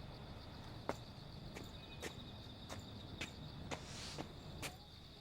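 Footsteps, sharp taps at an even pace of about two a second, over a faint steady high chirring of crickets.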